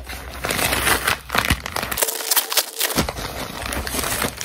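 Brown kraft-paper mailer bag crinkling and rustling as it is handled and opened, with many sharp crackles of the paper.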